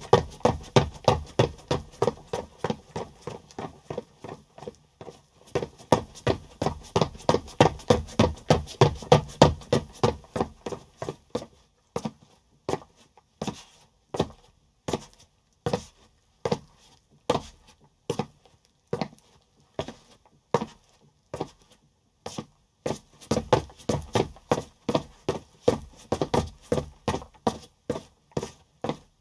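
Footsteps of a person running, about three steps a second, slowing to widely spaced single steps in the middle, then quickening to a steady run again near the end.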